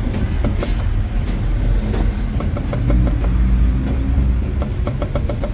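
Steel cleaver chopping a cucumber on a wooden chopping block: scattered knocks, then a quick, regular run of chops in the second half. Under it runs a steady low rumble of road traffic, swelling loudest around the middle as a vehicle passes.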